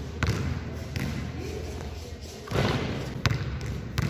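Basketball dribbled on a hard gym floor: a few sharp bounces with echo in the large hall.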